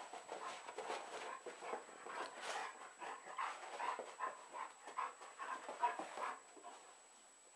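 A golden retriever and a ferret at play: a quick, irregular run of short breathy sounds, several a second, that stops about six and a half seconds in.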